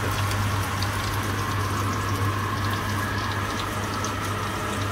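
Small fish frying in hot oil in a frying pan, sizzling steadily with many small crackles and pops, the fish well fried. A steady low hum runs underneath.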